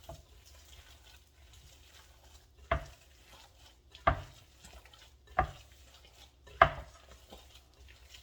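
Breadfruit and saltfish mixture being mixed by hand in a bowl, with four sharp knocks evenly spaced a little over a second apart.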